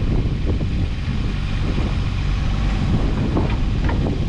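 Kubota U27-4 mini excavator's diesel engine running as the boom and dipper arm move out, with wind on the microphone.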